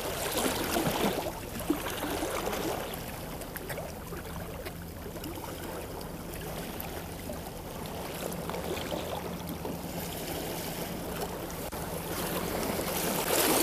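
A fishing boat's engine running with a steady low hum, under the noise of water washing against the hull and wind.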